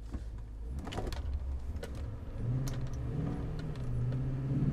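2008 Toyota Tundra's 5.7-litre V8 with a K&N cold air intake, heard from inside the cab: a low rumble with a few clicks and rattles in the first half. In the second half the engine note grows louder and rises as the truck speeds up.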